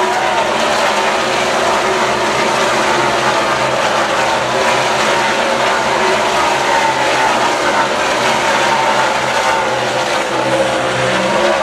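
A pack of NASCAR Sprint Cup stock cars' V8 engines passing one after another at race speed, their overlapping engine notes loud and continuous.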